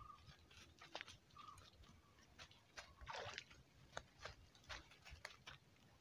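Faint scattered clicks and rustles close to the microphone, with a short, slightly louder rustle about three seconds in.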